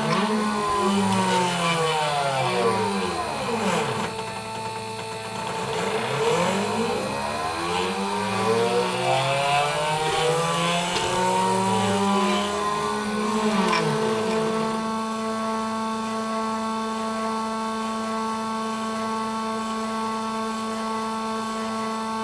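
Homemade CNC engraver running a cut: a steady motor hum, with the stepper motors' whine gliding up and down in pitch as the axes speed up and slow down. The gliding moves stop about two-thirds of the way through, leaving only the steady hum.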